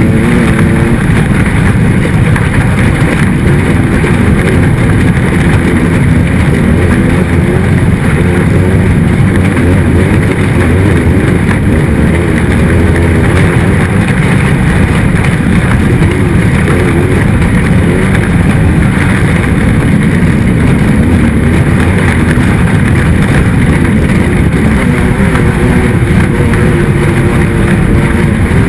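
Race vehicle's engine running hard and loud without a break, its pitch wavering slightly up and down.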